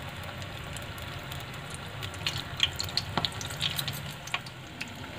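Besan-battered stuffed green chillies deep-frying in hot oil in a kadhai: a steady sizzle with scattered crackles and pops.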